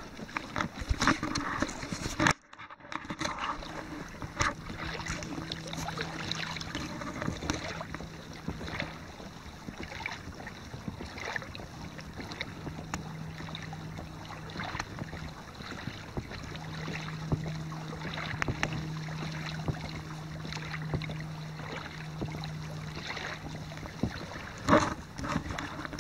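Water sloshing and lapping along the hull of a Hobie Mirage i12S inflatable kayak as it is pedaled along, with small irregular splashes. A faint low hum comes and goes.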